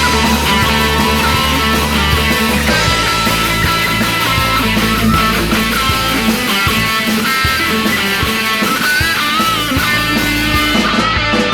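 Rock band playing an instrumental break between sung verses: a guitar plays a melody with bent notes over bass and drums.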